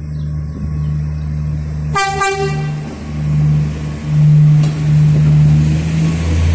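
A passenger train's horn gives a brief blast about two seconds in, the departure signal, over the train's engine running steadily, which grows louder from about four seconds in as the train gets ready to pull out.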